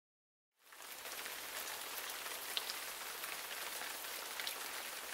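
Rain falling steadily, with scattered sharp drop ticks over an even hiss. It fades in quickly out of dead silence about half a second in.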